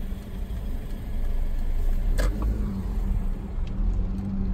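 Car driving, heard from inside the cabin: a steady low rumble of road and engine noise with a faint even hum, and one short click a little over two seconds in.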